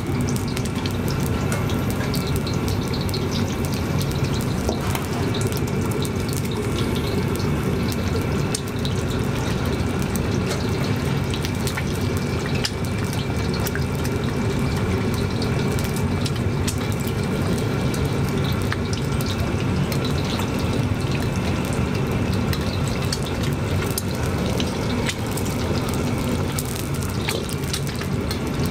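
Eggs deep-frying in hot oil in a wok: a steady sizzle with scattered sharp pops and crackles over a low rumble.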